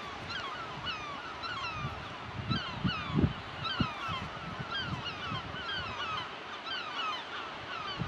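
A flock of gulls calling continuously, many short downward-sliding cries overlapping one another. A few low thumps come about three seconds in.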